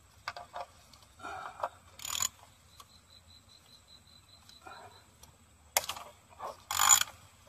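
Short clicks, knocks and rattles of hard plastic and metal as gloved hands work at the last ignition coil and its wiring connector on a 2012 Scion xD's engine; the loudest knock comes near the end. A faint high-pitched ticking, about five a second, runs for about two seconds in the middle.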